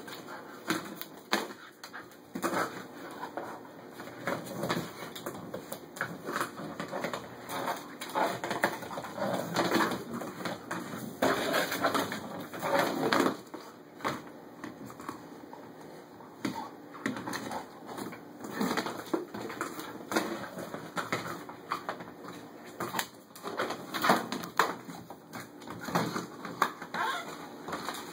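Hard plastic Kong Wobbler treat toy knocking, rolling and scraping on a tile floor as a puppy noses and mouths it, with claws clicking on the tile. Irregular clattering, busiest in the middle and with one sharp knock near the end.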